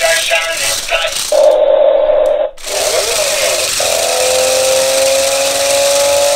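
Hand-controlled stunt RC car: its small built-in speaker first plays music or sound effects with a rattle, broken by short gaps. About two and a half seconds in this gives way to the whine and hiss of its electric drive motors, the whine rising slowly in pitch as the car drives.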